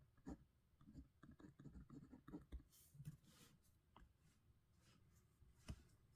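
Pen writing on paper: faint scratching strokes, with a few light taps of the pen, the sharpest near the end.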